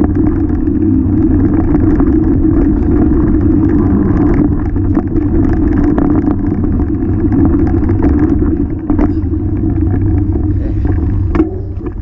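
Vitus Sentier 27 VRS hardtail mountain bike rolling fast down a dirt trail, heard through a handlebar-mounted action camera: a steady loud rumble of tyres, vibration and wind on the microphone, with scattered knocks and rattles from roots and bumps. The rumble becomes quieter near the end.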